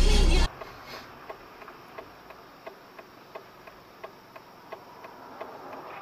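Music cuts off about half a second in. Then a car's turn-signal indicator clicks steadily inside the cabin, about three clicks a second.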